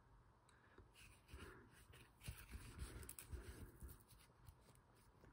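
Faint rustling and small scratchy ticks of an embroidery needle and floss being drawn under the stitches on the back of Aida cloth, while finishing off a thread.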